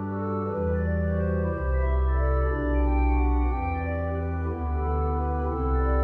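Organ music: slow, held chords over a deep bass line, the harmony changing about once a second.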